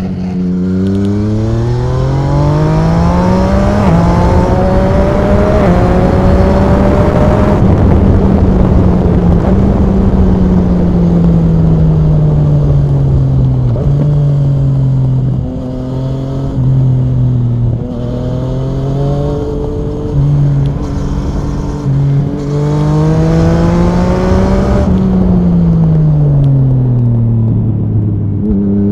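Yamaha MT-09 SP's three-cylinder engine through an Akrapovic Racing exhaust, accelerating hard and shifting up, holding high revs, then coming off the throttle with the revs falling, with short dips and blips before pulling hard again and easing off near the end. Wind rush runs steadily under the engine.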